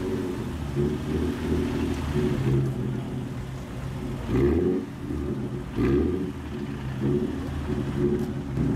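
Low-slung sports car's exhaust running at low revs as it creeps past and pulls away, swelling and easing in uneven surges with the throttle.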